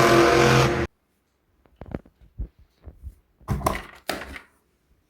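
A monster-truck engine revving, rising in pitch over a noisy crowd-like haze, cuts off suddenly about a second in. After it come scattered light clicks and knocks.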